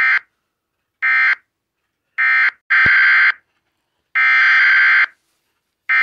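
Emergency Alert System SAME digital data bursts, a harsh buzzing screech. Three short bursts about a second apart are the end-of-message code closing a flash flood warning. They are followed by three longer header bursts that announce the next alert, a required weekly test.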